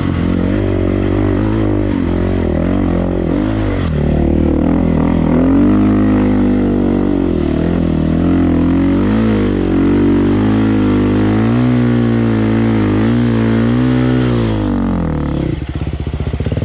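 Dirt bike engine revving up and down over and over, its pitch rising and falling with the throttle, as on a steep climb. About fifteen seconds in it drops to a lower, choppier running.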